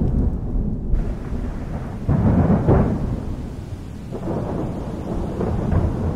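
Thunder rolling in a thunderstorm, a low continuous rumble that swells sharply about two seconds in and again more softly twice after, with rain underneath.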